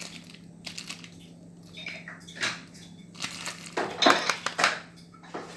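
Irregular clattering and scraping of hard, metal-sounding parts being handled, loudest about four seconds in, over a steady low hum.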